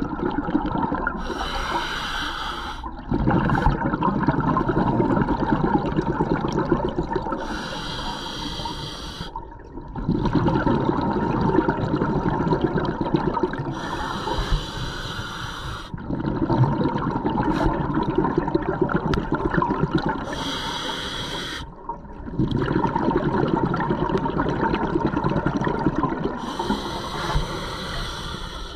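Scuba diver breathing through a regulator underwater: each breath is a short hiss as the demand valve delivers air, then a longer burble of exhaled bubbles. Five breaths, about one every six seconds.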